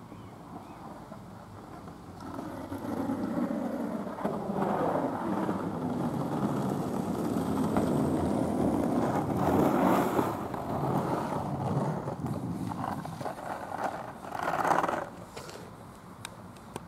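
Skateboard wheels rolling on rough asphalt, building up as the board approaches and passes, then fading, with a short louder burst near the end.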